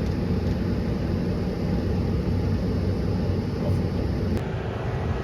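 Steady drone of a large diesel harvest machine's engine running, with a brief click about four seconds in.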